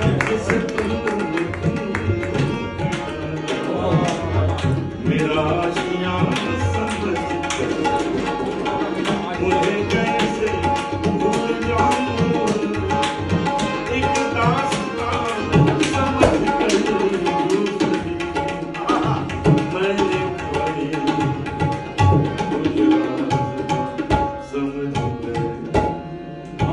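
Tabla played in a fast, dense instrumental passage, with a harmonium holding steady notes underneath.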